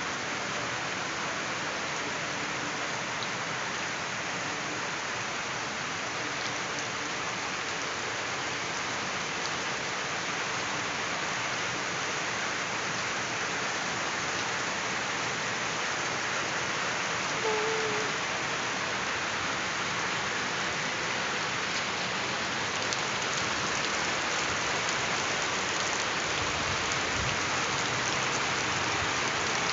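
Steady rain falling, an even unbroken hiss that grows slightly louder toward the end.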